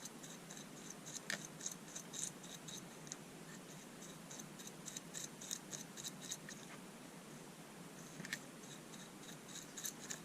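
Small paintbrush scrubbing a little grease, with alcohol, off the plastic planetary gears of a Bosch Ixo screwdriver's gearbox: faint, irregular scratchy brush strokes, with a couple of sharper clicks.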